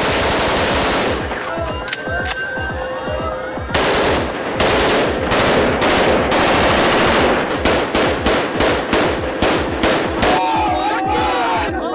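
Rifles fired into the air as celebratory gunfire. Long runs of rapid automatic fire are followed, from about seven and a half seconds in, by separate cracks at about four a second.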